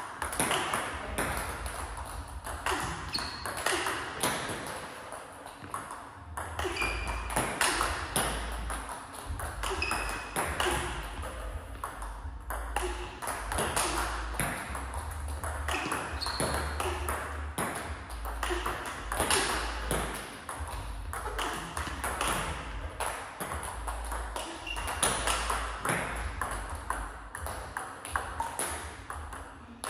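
Table tennis balls being struck by bats and bouncing on the table one after another, a continuous string of sharp pings and clicks as in a fast practice drill.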